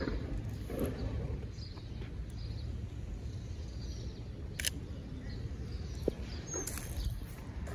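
Outdoor street ambience with wind rumbling on the microphone and a few sharp clicks, the clearest a little past halfway through.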